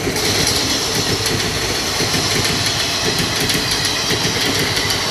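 Passenger train coaches passing at speed close by: a loud, steady rush of wheels on the rails with a fast, continuous rattle.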